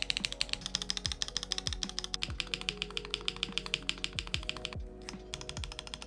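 Rapid clicking of Holy Panda tactile key switches on a Cyberboard R3 mechanical keyboard as keys are pressed and keycaps pushed on, roughly ten clicks a second with a short break near the end, over background music.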